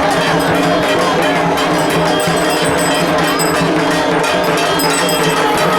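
Loud, continuous clanging of metal bells amid festival music, with crowd voices underneath.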